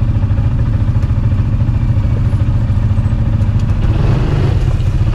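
Motor vehicle engine running steadily while driving, heard from on board as a constant low rumble with a fast flutter.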